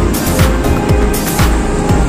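Background music with a steady beat: a deep bass note that slides down in pitch on each beat, about twice a second.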